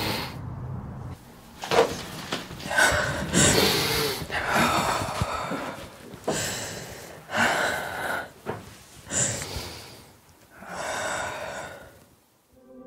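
A woman breathing heavily: about eight loud, separate breaths in and out, each lasting up to a second.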